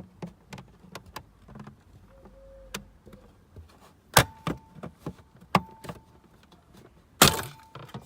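Plastic dashboard side panel of an Audi A4 B6 being prised off with a screwdriver: scattered clicks and scrapes, with three loud snaps as its clips give, about four, five and a half and seven seconds in.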